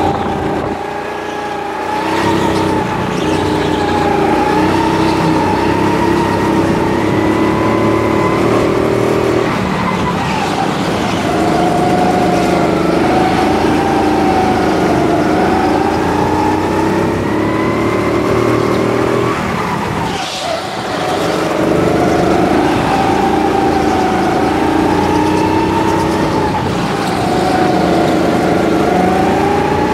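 Go-kart engine running hard on track, its pitch rising and falling as the driver lifts for corners and accelerates out, with two marked dips about ten and twenty seconds in.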